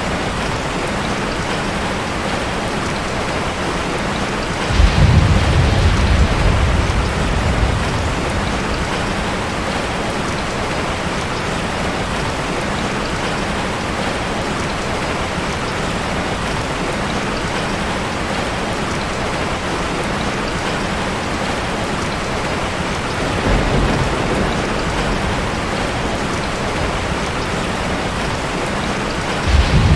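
Heavy rain pouring steadily, with a sudden loud rumble of thunder about five seconds in that rolls on for a few seconds. A weaker rumble comes later, and another begins right at the end.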